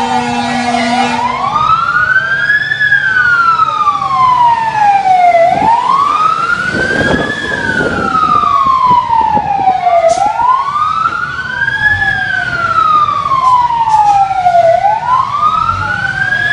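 Emergency vehicle siren wailing loudly. Each cycle rises quickly, falls slowly and repeats about every four to five seconds, with a second siren overlapping out of step at times.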